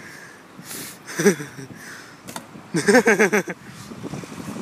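A person laughing: a short laugh about a second in, then a louder burst of rapid, pulsing laughter near three seconds in.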